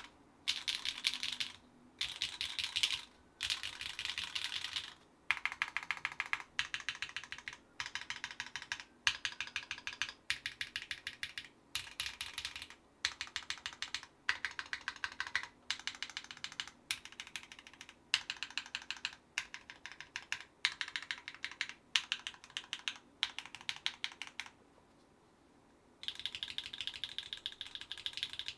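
Typing on a mechanical keyboard with lubed Gateron Deepping 4 mm linear switches, GMK keycaps and an aluminium plate: quick runs of keystrokes broken by short pauses, with one longer pause near the end.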